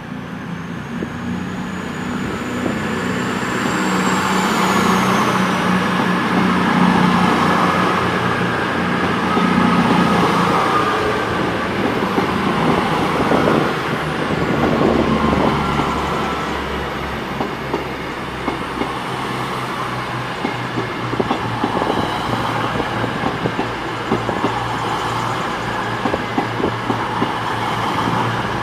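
Two coupled Class 221 Super Voyager diesel-electric trains pulling away, their underfloor Cummins diesel engines throbbing under power, loudest about a third of the way in. In the second half the engine note fades, and the wheels click over the rail joints as the train speeds off.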